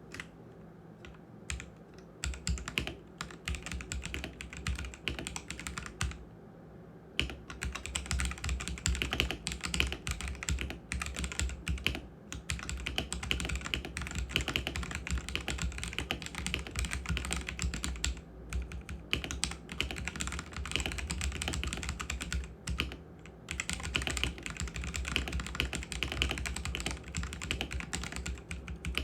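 Typing on a Koorui MK082 75% mechanical keyboard with red linear switches. A few separate keystrokes come first, then steady, fast typing from about two seconds in, with a short pause around six seconds and brief gaps later.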